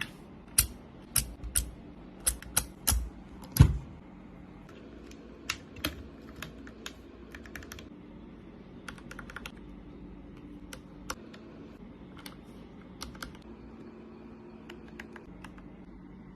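Keyboard keys clicking in irregular taps, loudest and most frequent in the first four seconds, then sparser and fainter.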